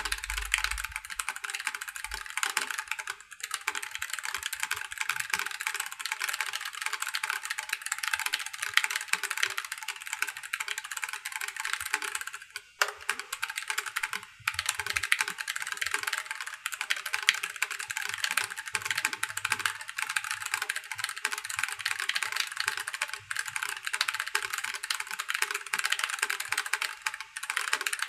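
Fast touch-typing on a Keychron K1 Pro low-profile mechanical keyboard with Keychron low-profile brown (tactile) switches: a dense, steady stream of key clacks at about 157 words a minute, with a brief pause about halfway through.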